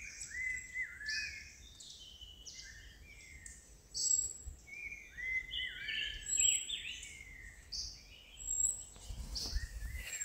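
Several birds calling: a chorus of short whistled notes that rise and fall, repeated again and again, with higher, sharper calls among them.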